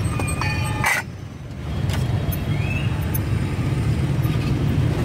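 Street traffic: a steady low engine rumble of passing motorbikes. The sound dips briefly about a second in.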